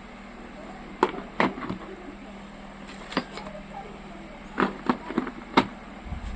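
Objects being handled: several sharp clicks and knocks at irregular moments over a steady low hum.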